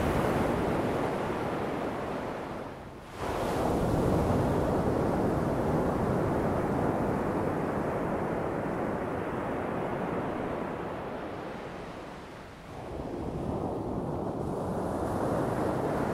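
Shallow sea waves washing in over wet sand, with wind on the microphone. The wash dies down briefly about three seconds in, ebbs again around twelve seconds in, then surges back.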